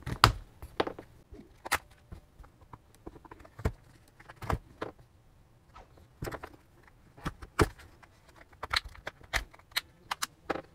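Irregular sharp plastic clicks and ticks as a plastic pry tool works along the seam of a Huawei Mobile WiFi Pro 2 pocket router's plastic back cover.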